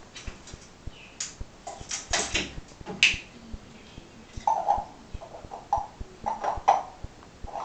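African grey parrot imitating a person coughing and hawking up phlegm: a few harsh rasping bursts, then a quick run of short hacking coughs over the last few seconds.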